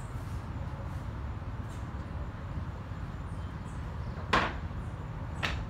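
Two sharp knocks over a steady low rumble, about four seconds in and again a second later, the first the louder.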